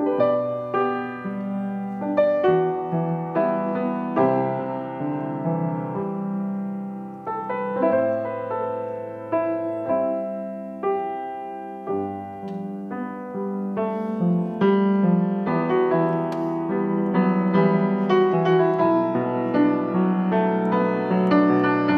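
Petrof grand piano being played, chords and melody with each note ringing and fading. The playing grows denser and louder about two-thirds of the way through.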